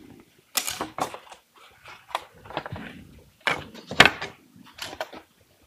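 Thin wooden pieces of a scale-model boat-building jig knocking and clattering against a wooden workbench as the assembly is turned right side up: a string of separate light knocks, the loudest about four seconds in.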